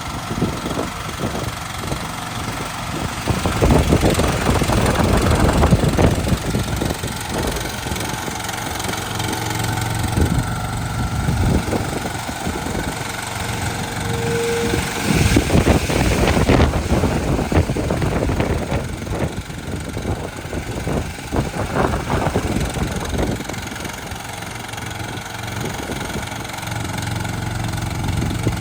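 Small engine of an AGT Industrial YF2-380 mini skid steer running steadily. It grows louder for a couple of seconds about four seconds in and again around the middle.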